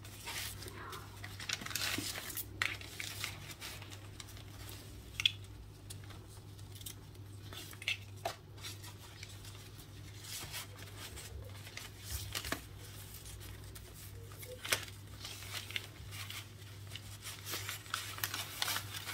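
Satin ribbon being pulled and tied into a bow on a kraft paper bag: faint, scattered swishes and paper crinkles, with a sharper tap about five seconds in.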